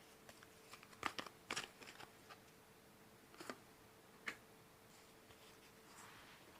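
Faint handling of tarot cards: a quick cluster of soft clicks and flicks about one to two seconds in, then two single taps later, over a faint steady hum.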